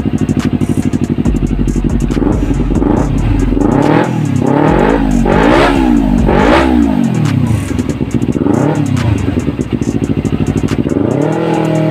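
Kawasaki Ninja 250's parallel-twin engine through a Prospeed Viper aftermarket exhaust, free-revved on a stand: it idles steadily, then takes several quick throttle blips in a row, each rev rising sharply and falling straight back. It settles to idle, gets a smaller blip, and starts revving up again near the end.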